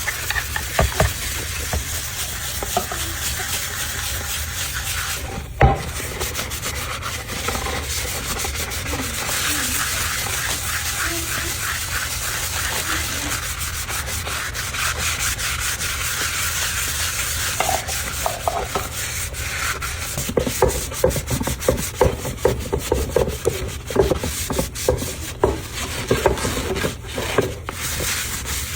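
A wooden cutting board being rubbed or scrubbed in quick back-and-forth strokes, a steady scratchy rasp. It is broken by a single sharp knock about six seconds in, and the strokes grow choppier and more uneven in the last third.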